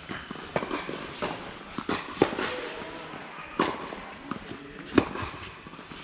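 Tennis rally on an indoor court: a string of sharp knocks from the ball striking rackets and bouncing on the court, the loudest about two, three and a half and five seconds in.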